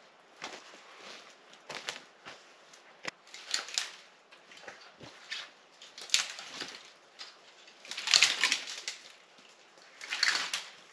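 Twigs and brush rustling and crunching as someone moves through and handles them, in short irregular bursts a second or two apart; the loudest comes about eight seconds in.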